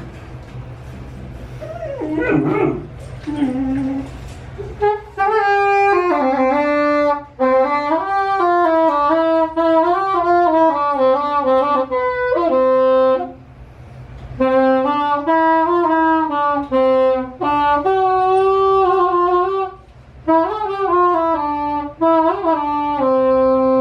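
Music: a saxophone plays a melody from about five seconds in, with several short breaks between phrases.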